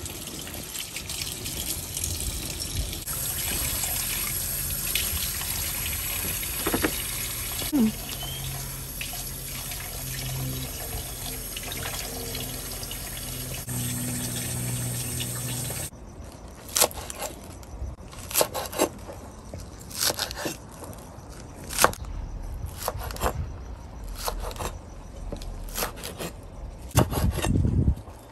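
Tap water running into a steel sink as green onions are rinsed under it. After a cut about two-thirds of the way through, a chef's knife chops the green onions on a wooden cutting board, with sharp separate chops about one or two a second.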